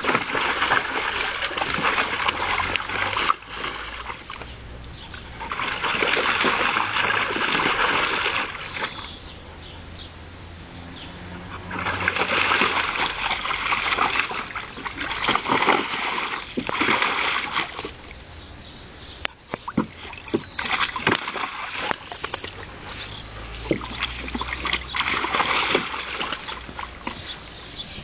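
A Beauceron dog splashing in a small plastic paddling pool, pawing and stamping at the water. It comes in several bouts of a few seconds each, with quieter pauses between.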